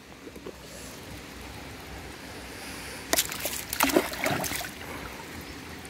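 Shallow river water running steadily, with a dog splashing through it in a few quick bursts about three to four seconds in as it jumps up.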